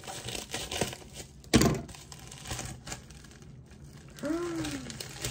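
Plastic mailer packaging crinkling and rustling as it is torn open by hand, with one sharp rip about a second and a half in. A short hummed voice sound near the end.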